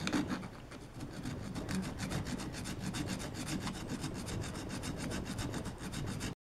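Hand file rasping across the mangled teeth of a steel gear clamped in a vise, in a run of short back-and-forth strokes, filing the damaged teeth back into shape. The filing stops abruptly near the end.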